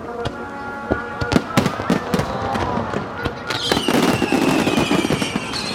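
Fireworks going off: many sharp bangs and crackles in quick succession. About three and a half seconds in, a long high whistle starts and slowly falls in pitch.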